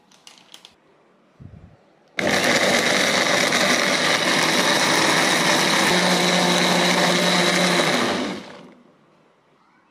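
Electric countertop blender switching on with a soft knock before it, running steadily for about six seconds as it grinds shallots, garlic, ginger, turmeric and red chilies with oil into a spice paste, then winding down.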